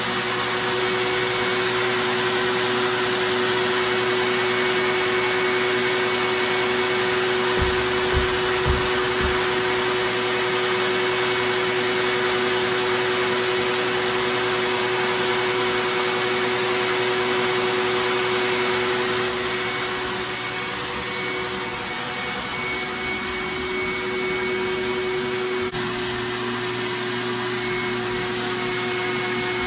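Steady whirring hum of a motor-driven fan, with a few dull thumps about eight seconds in and light crackling rustles in the later part.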